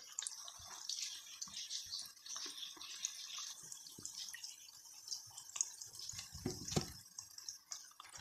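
Tempura-battered chicken balls deep-frying in hot oil in a pan: a faint, steady crackling sizzle with scattered small pops. A brief louder knock comes about six and a half seconds in.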